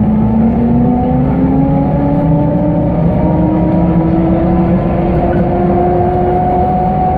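Trolleybus electric traction motor whining from inside the cabin as the vehicle accelerates. The whine rises slowly and smoothly in pitch throughout, over a low rumble of road and tyre noise.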